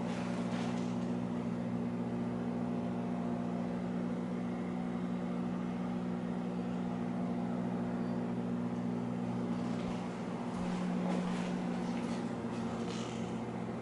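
A steady low hum of several tones, like an appliance or ventilation unit running. There are a few faint soft rustles or footfalls near the end.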